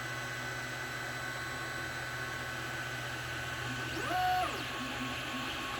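Creality Ender 3 Pro 3D printer running: a steady hum with a constant whine, and about four seconds in a short stepper-motor move whose pitch rises, holds briefly and falls again.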